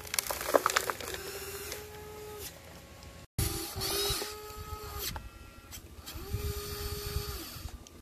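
Radio-controlled wheel loader's electric motor whining in stretches of a second or two as it works the bucket, with dirt clattering into a model dump truck's bed under a second in.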